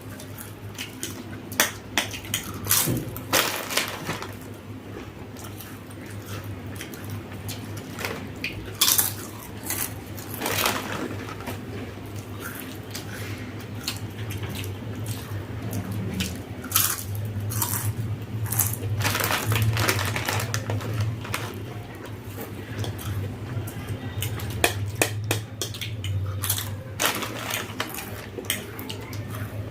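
Spoons clinking and scraping against plates and bowls while people eat, in scattered irregular clicks, over a steady low hum.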